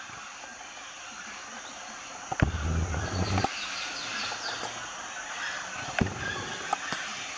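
A flock of parrots at a clay lick calling and chattering continuously. A loud, dull low rumble cuts in about two and a half seconds in for about a second, with a few sharp knocks later.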